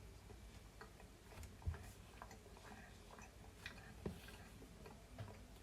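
Faint, irregular small clicks with a couple of soft knocks: someone chewing a bite of dense, slightly dry homemade sponge cake.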